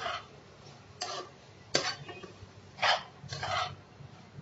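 Spatula stirring finely chopped cabbage and carrots in a nonstick kadhai: a scraping swish with each stroke, about five strokes at uneven intervals.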